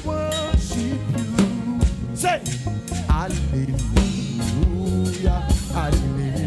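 Live gospel praise music: a drum kit beat with bass underneath and voices singing over it, the sung notes wavering in pitch.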